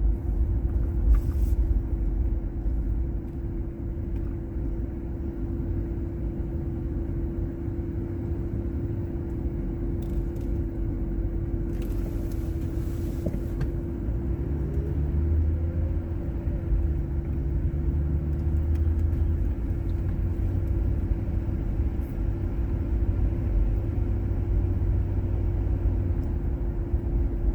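A car or truck being driven, its engine and road noise making a steady low rumble with a constant hum over it.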